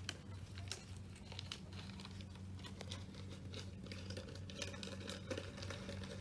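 Soft crinkling and scattered small clicks of a clear plastic container being handled close to the microphone, over a faint steady low hum.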